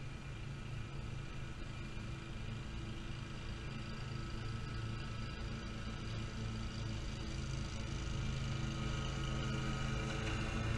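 Great Dane Super Surfer stand-on mower running, its engine and cutting deck humming steadily and growing louder as it comes closer.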